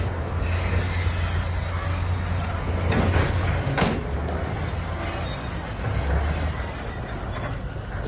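Bulldozer's diesel engine running steadily under load, with metallic clanking and squealing from its steel tracks and two sharp knocks about three and four seconds in.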